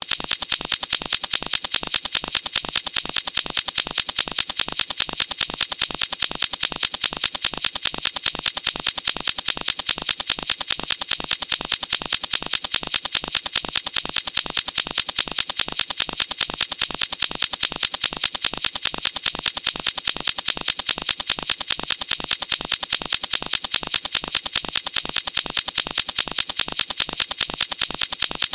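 Fidget toy clicking very rapidly and evenly, a sharp, high, unbroken rattle of clicks that never changes pace.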